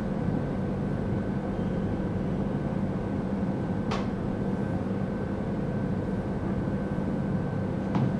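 Steady mechanical room hum with a few constant tones, like a fan or air-handling drone, and one sharp click about four seconds in.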